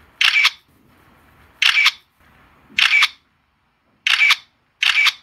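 Camera shutter clicking five times, each click short and crisp, about a second apart with silence between.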